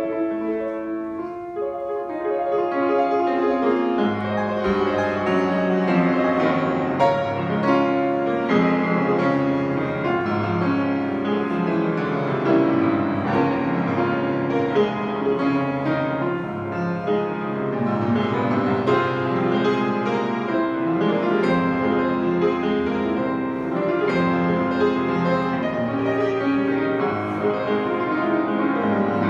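Grand piano played solo: a flowing piece of sustained chords and melody, with lower bass notes joining in about four seconds in.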